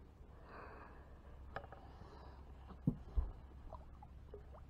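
Two dull knocks a moment apart about three seconds in, from handling on a carpeted bass boat, over a low steady rumble. A light click comes before them, and a few short rising squeaks follow near the end.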